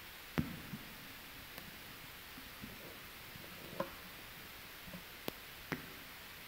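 Scattered knocks and clicks of an acoustic guitar being picked up and handled, and a microphone being touched, over a steady hiss. The loudest knock comes about half a second in.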